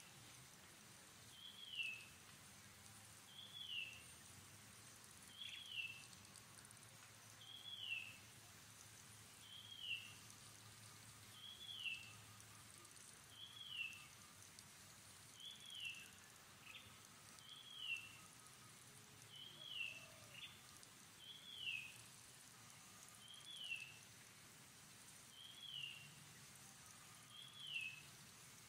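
A bird repeating one short whistled note that slides down in pitch, very evenly about every two seconds, over a faint high insect hiss.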